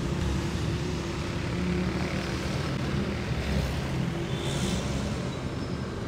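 Road traffic with a vehicle engine running close by: a steady low hum over an even traffic noise.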